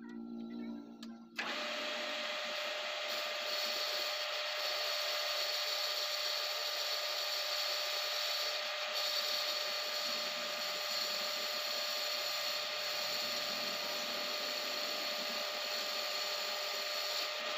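Metal lathe running steadily while a boring tool cuts the bore of an aluminium sprocket plate holder: an even machine noise with a steady whine, starting abruptly a little over a second in.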